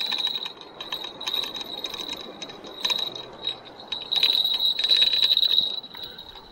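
Fishing reel being cranked, a rapid run of ticks with a steady high whine, loudest from about four seconds in, as a chub is reeled in.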